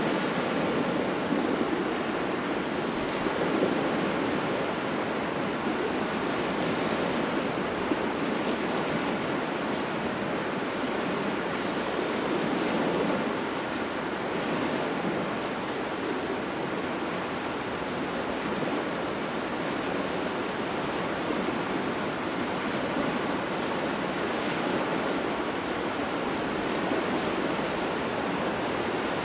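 Waves washing onto a shore in a cold wind, a steady rushing wash that swells and eases every few seconds, with wind buffeting the microphone.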